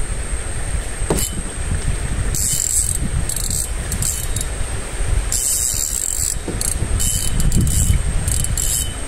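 Fishing reel being cranked in short spells while a hooked fish bends the rod over, a high whirring that starts and stops several times, over a steady low rumble.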